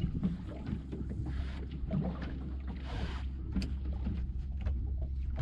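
Fishing boat on the water: a steady low rumble with scattered small knocks and clicks, and two brief rushing swells of water or wind, one a little over a second in and one about three seconds in.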